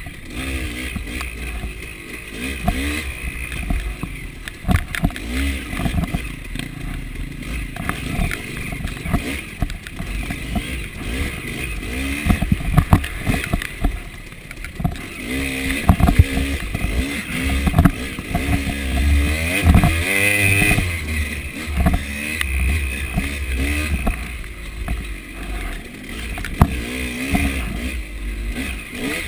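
Two-stroke KTM 300 dirt bike's engine, heard from on the bike, revving up and down repeatedly as it is ridden. Frequent knocks and rattles come from the bike going over rough ground.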